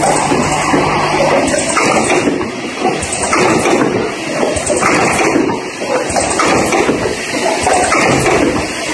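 Automatic spray-bottle capping machine running, its rotary table indexing bottles under the capping heads: a steady, noisy mechanical wash with irregular hissy spots on top.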